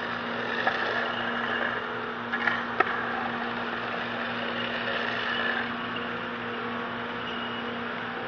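Continuous mortar mixer and mortar pump running steadily, a constant mechanical hum while they feed leveling topping down the hose. A few brief knocks come about two to three seconds in.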